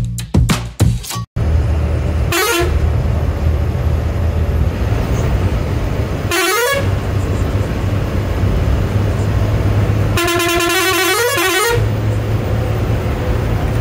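Bus engine running steadily at cruising speed, heard from inside the cabin, with the bus's horn sounded three times: two short blasts and then a longer blast, warning a truck ahead while overtaking.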